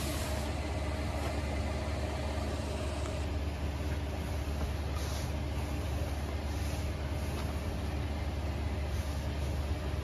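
Steady low mechanical hum and rumble, with a few faint rustles of a bedsheet.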